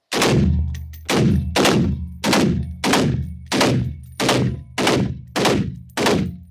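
A rifle fired in rapid single shots: about ten sharp reports, a little over half a second apart, each ringing off the concrete walls of an indoor range.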